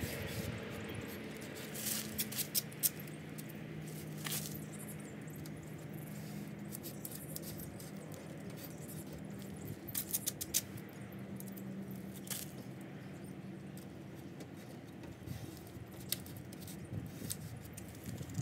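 Faint scattered clicks and rustles of light handling over a steady low hum, with a few small clusters of ticks.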